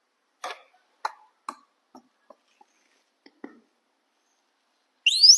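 A scattering of about eight light clicks and taps, then, near the end, a short high-pitched squeak that rises sharply in pitch.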